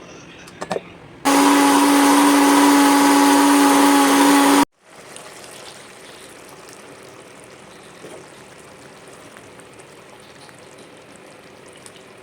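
Electric mixer grinder running at full speed for about three seconds with a steady high hum, then switched off and cutting out suddenly. It is preceded by a couple of short knocks.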